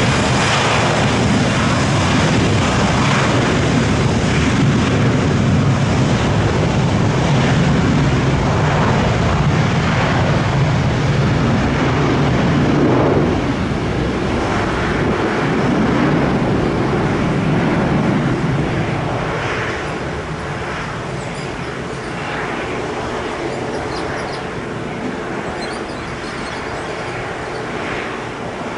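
Aircraft engines at an airport, a loud, deep rumble close by that holds steady for roughly the first half, then fades away over the last ten seconds as the aircraft moves off.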